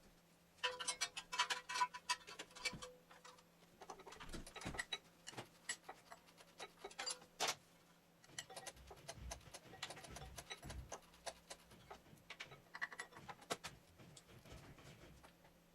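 Metal hand tools clicking and clinking in irregular bursts, with a faint metallic ring in the busiest stretch about a second in and a single sharp knock about halfway through.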